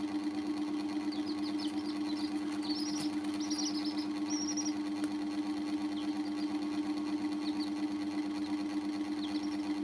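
Baby chicks giving short high peeps in small bunches, over a steady hum that is the loudest sound throughout.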